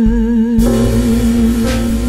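Music: one long held note with vibrato over band accompaniment, with low bass notes coming in right at the start.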